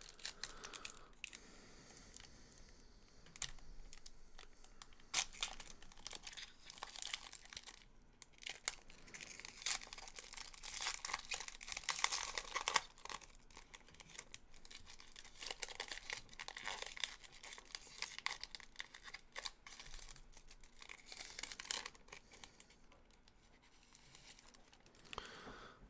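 Quiet rustling, crinkling and tearing of trading card pack wrappers as a pack is ripped open and the cards are handled, in irregular bursts that are busiest in the middle.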